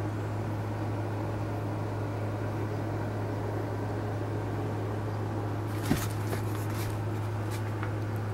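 Steady low hum over even background hiss. About six seconds in comes a single thump, then a brief cluster of scattered clicks.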